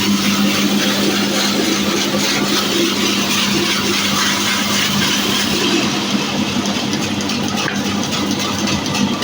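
Electric horizontal band sawmill running steadily with its blade cutting through a mahogany log: a constant low motor hum under the dense noise of the cut.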